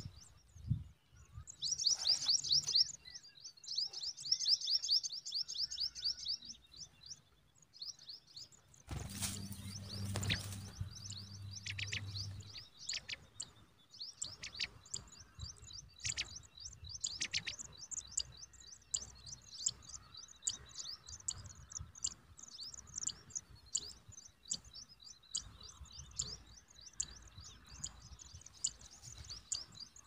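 High-pitched chirping of songbird nestlings begging at a ground nest while a parent feeds them. Rapid trains of thin cheeps come in the first six seconds, then scattered chirps run on throughout. A low rumble sounds for a few seconds about nine seconds in.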